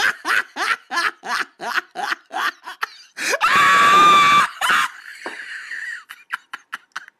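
A person laughing in quick breathy bursts, about four a second, then a loud shriek lasting about a second, starting roughly three seconds in.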